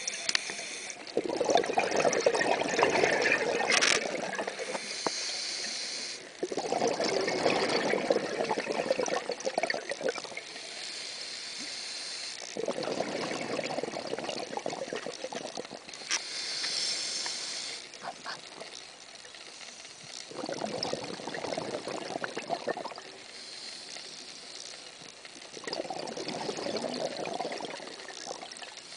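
Scuba diver breathing through a regulator underwater: each inhale is a high hiss, each exhale a louder burst of rushing bubbles, about five breaths in a slow, even cycle.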